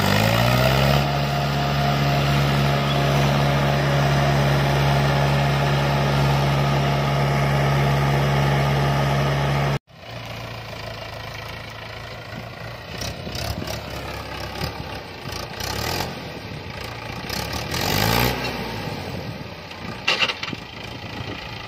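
Mahindra 575 DI tractor's diesel engine revving up over the first second and then held at a steady high pitch for about ten seconds, cut off abruptly. After that the tractor engine runs more quietly and unevenly, with one short rev rising and falling near the end.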